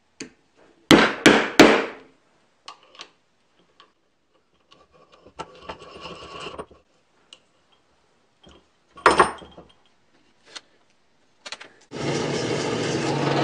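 Three sharp knocks of wooden parts in quick succession about a second in, then scattered light clicks, a brief scrape and another knock about nine seconds in. Near the end a saw starts cutting plywood with a steady noise.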